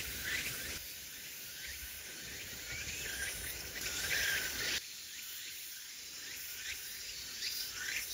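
Insect chorus of many short, repeated chirps that dip in pitch. It jumps abruptly in level and character about a second in and again around five seconds.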